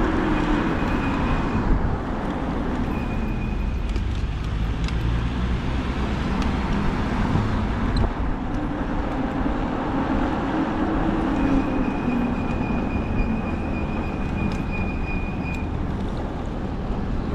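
Riding a modded fat-tire e-bike: steady wind and rolling road noise, with a thin high whine that comes in briefly near the start, again around 3 s, and for a few seconds in the second half.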